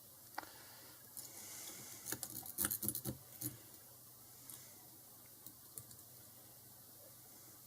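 Lock picks and a tension wrench clicking and rattling against a Squire SS50C padlock as they are handled and worked in the keyway. There are a few single clicks, and a quick cluster of rattles about two to three seconds in.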